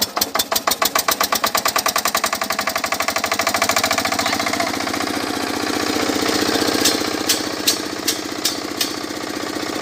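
Single-cylinder stationary farm engine with a large flywheel catching and running up. Its chugging beats quicken over the first few seconds, then settle into a steady run as it drives a water pump. A short run of sharp clicks comes about two-thirds of the way through.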